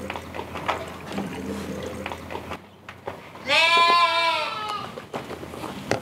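Karacabey Merino sheep bleating: fainter bleats in the first two seconds, then one loud, long, wavering bleat about three and a half seconds in.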